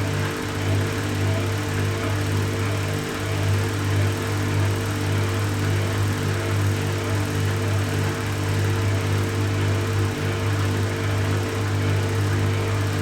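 Samsung Eco Bubble washing machine on its spin cycle, the drum spinning at a steady speed with a steady low hum and an even whir above it.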